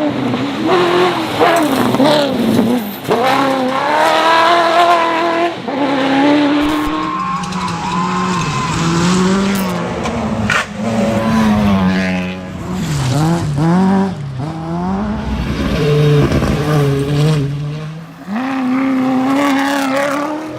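Rally car engines revving hard at full stage pace, their pitch climbing and dropping again and again through the gear changes, with a few sharp cracks.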